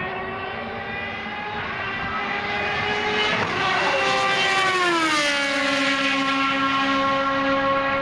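Rebellion Lola B12/60's Toyota V8 race engine at high revs going past at speed: a high, many-toned engine note that swells and drops in pitch as the car passes, about five seconds in. It then holds steady at the lower pitch as the car pulls away.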